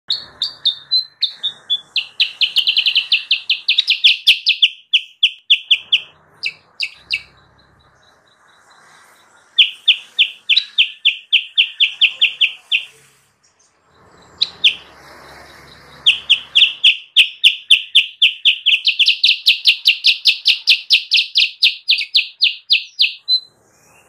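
Kutilang sutra bulbul singing in long runs of loud, rapid repeated chirps, about four a second, in three bouts separated by short pauses.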